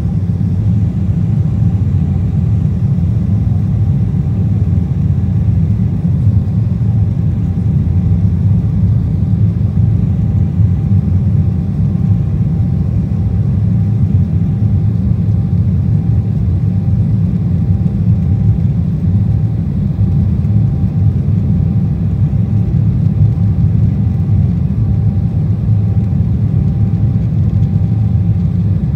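Cabin noise of an Embraer 190 in its climb after takeoff: a steady low rumble from its CF34 turbofan engines and the airflow, with a faint steady whine above it.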